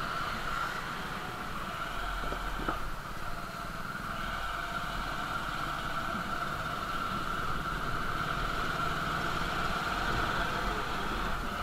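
Motorcycle engine running steadily at low riding speed, with a steady high whine over the engine.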